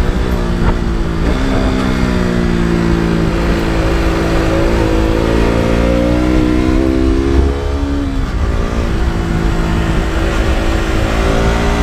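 KTM RC 200's single-cylinder four-stroke engine and exhaust running under riding load. The pitch falls at the start, then climbs slowly. It dips sharply about eight seconds in and then climbs again, with a low wind rumble underneath.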